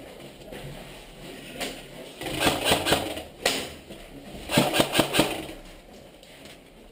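Airsoft electric guns firing: two short runs of sharp rattling clacks, with a single clack between them.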